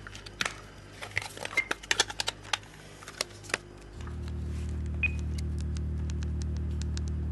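A small mobile phone being handled and its keypad buttons pressed: a quick run of plastic clicks, then sparser key presses with a short beep about five seconds in. A steady low hum sets in about four seconds in.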